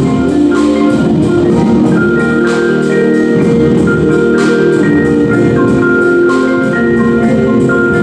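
Indoor percussion ensemble's front ensemble playing: marimbas and other mallet instruments over long held chords, with a struck accent about every two seconds.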